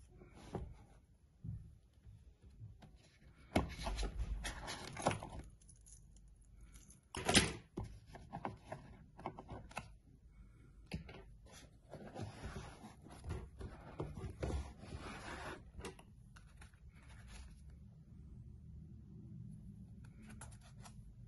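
Hands handling a rigid cardboard gift box: the lid being opened, packaging scraping and rustling, a drawer slid out and items in it rustled. A sharp knock about seven seconds in is the loudest sound, with scattered small clicks and taps.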